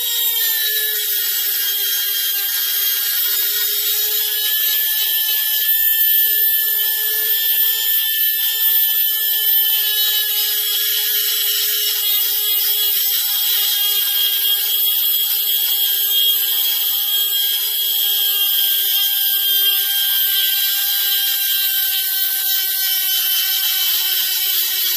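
High-speed handheld rotary grinder running steadily with its burr cutting into the magnesium VW transmission case, grinding clearance for a 200 mm 12-volt flywheel. A steady high whine with a loud hiss over it, the pitch dipping slightly as the burr bites.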